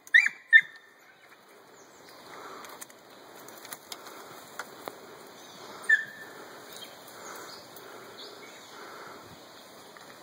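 Young rabbit hounds giving short, sharp yips in the undergrowth: two right at the start and one about six seconds in. Between them the brush rustles steadily as the dogs push through it.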